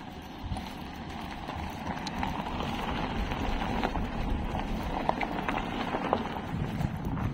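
Footsteps crunching on loose gravel and broken asphalt, with a steady hiss behind them that grows slowly louder.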